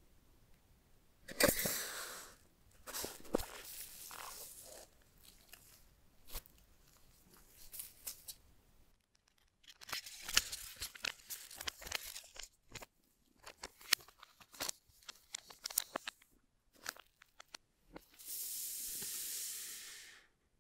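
Soft paper packaging wrap rustling and crinkling as it is peeled off AirPods Max headphones, with scattered light clicks and taps. Near the end a steady sliding rustle lasts about two seconds as a white cardboard box is handled.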